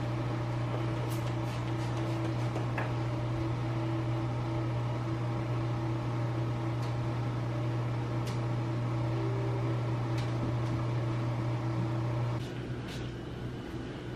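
A household appliance running with a steady low electrical hum, which cuts off suddenly about twelve seconds in, with a few faint ticks scattered through.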